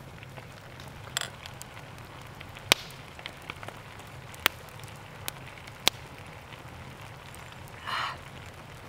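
Wood campfire crackling, with sharp single pops at irregular intervals of a second or two. About a second in, two beer glasses clink together in a toast.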